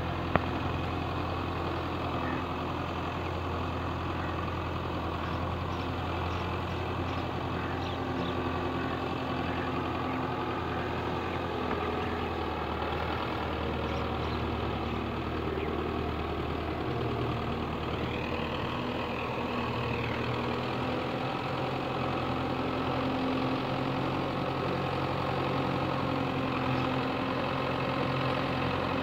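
Belarus tractor's diesel engine running steadily as it drags a levelling board through a flooded field.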